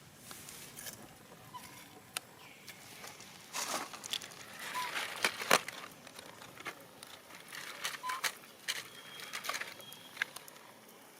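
Macaques moving about and feeding: scattered rustles, clicks and patters, with a few short high chirps.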